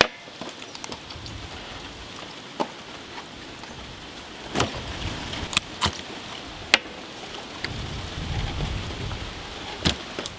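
A large knife cutting through raw chicken carcasses and knocking against a steel tray: a few sharp, separate clicks and cracks over a steady faint hiss.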